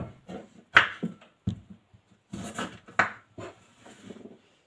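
Kitchen knife cutting through the ends of a raw carrot onto a wooden chopping board: several sharp, irregular knocks of the blade meeting the board, the loudest a little under a second in.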